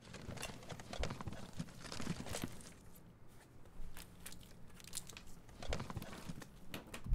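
Crumpled packing paper rustling and crinkling in a cardboard box, with scattered light knocks and clicks as a slide projector is lifted out.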